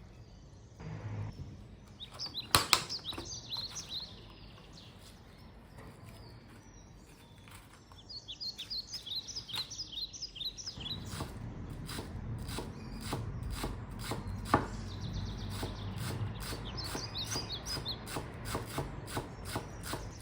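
Knife chopping on a cutting board, starting about a third of the way in and then running as a quick, regular series of taps. Small birds chirp in the background now and then.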